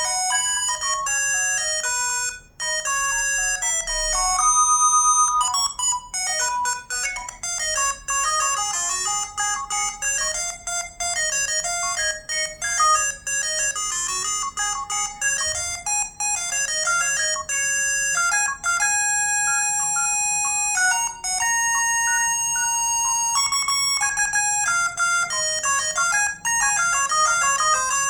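ZTE V617 mobile phone ringtone playing: a bright synthesized melody with no bass, mostly quick notes with a stretch of longer held notes past the middle, and a brief break about two and a half seconds in.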